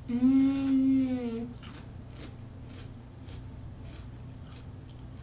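A woman hums one long, pleased 'mmm' with her mouth closed for about a second and a half, then chews wavy potato chips with faint, scattered crunches.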